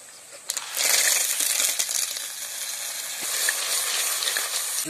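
Snails in their shells going into a pot of hot oil with tomatoes and chillies: a clatter of shells about half a second in, then loud sizzling that carries on.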